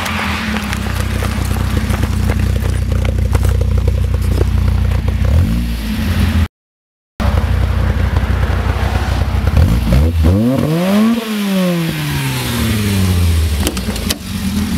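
Mk1 VW Golf's 1.3-litre eight-valve carburetted four-cylinder engine, fitted with a 268 cam, Powerflow branch manifold and 50 mm stainless two-box exhaust. It runs steadily at first, then is revved once about ten seconds in, rising quickly and falling back over about three seconds.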